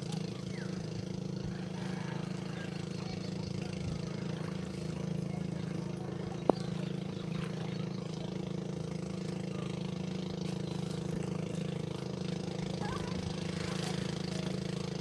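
An engine running steadily at idle, a constant low hum, with one sharp click about halfway through.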